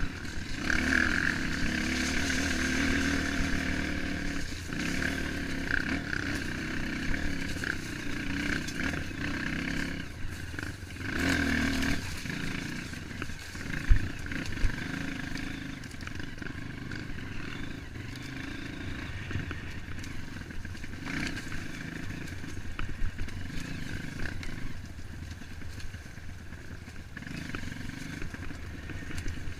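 Trail motorcycle engine running while riding along a dirt trail, the engine note rising and falling with the throttle and louder through the first half. Two sharp knocks about halfway through, half a second apart, stand out as the loudest sounds.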